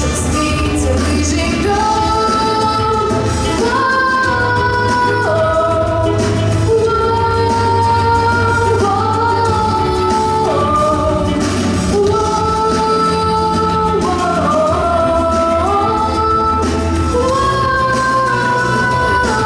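A woman singing a song with musical accompaniment, holding long notes that step from pitch to pitch over a steady low bass.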